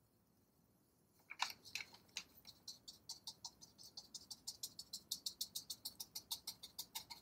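Fan brush dabbed rapidly against a stretched canvas: a quick, even run of light taps, about five or six a second, starting a little over a second in.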